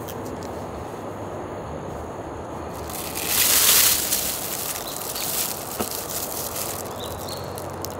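Thin plastic bag crinkling and rustling as it is handled and knotted shut, loudest for about a second around three seconds in, with lighter crackles after. A steady outdoor background noise runs underneath.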